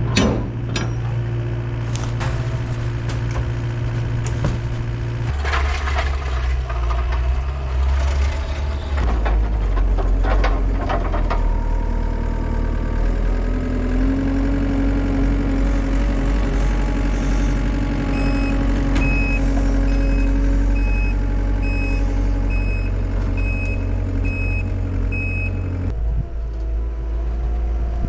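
Diesel machine engine running and changing speed a couple of times, with a few metal clanks in the first half. A backup alarm beeps steadily, about once a second, for several seconds in the second half as the machine reverses.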